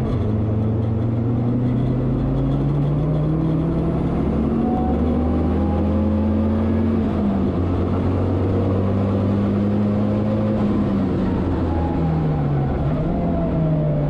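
BMW 320 race car's engine heard from inside the cockpit, pulling hard on track with its pitch climbing for about seven seconds, then a shift and a steady high-speed run. Near the end the pitch falls and dips as the car brakes and downshifts.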